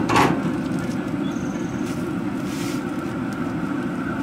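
Two quick metal clinks right at the start, a spatula and foil-wrapped fish against the steel grates of a pellet grill, over a steady low rumble.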